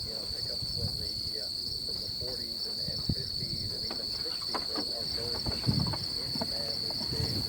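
Crickets trilling in one steady, unbroken high-pitched note, with faint low knocks and rustles underneath.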